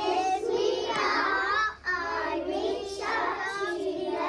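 A group of young children singing together, with a short break between lines a little under two seconds in.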